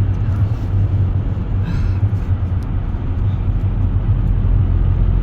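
Steady low engine and road rumble heard inside a Hackney taxi's cabin.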